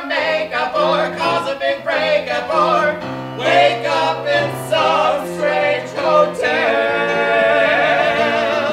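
Two men singing the closing line of a comic show tune as a duet over instrumental accompaniment, ending on a long held note with vibrato.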